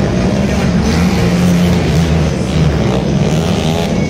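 Monster truck engine running loud, its pitch rising and falling a little.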